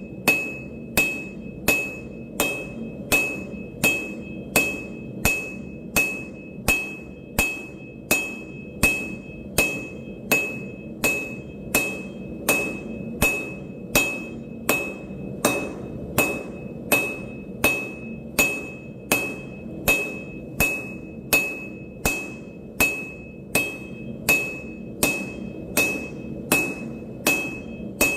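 Hammer blows forging steel on an anvil, struck in an even rhythm of about two a second, each blow with a short bright ring. A steady low drone runs underneath.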